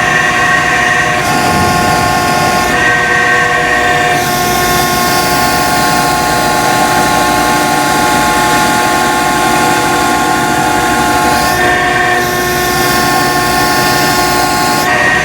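Heavy engine running hard with a steady droning whine, its pitch shifting a few times.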